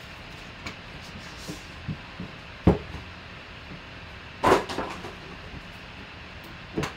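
A metal trading-card tin handled on a tabletop. There is a sharp knock a little under three seconds in, a louder scraping rattle about a second and a half later, and a smaller knock near the end.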